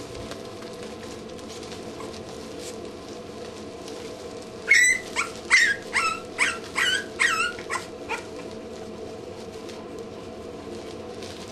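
Two-week-old English Bulldog puppies whimpering: a run of about eight short, high squeals, each falling in pitch, starting about five seconds in and lasting some three seconds.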